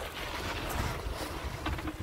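Wind buffeting the microphone: an irregular low rumble over a steady hiss, with a few light clicks in the second half.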